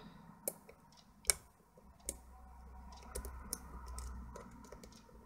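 Lock pick working the pins of an Era 6-pin euro cylinder lock during single pin picking: scattered light metallic clicks at irregular intervals, the sharpest a little over a second in.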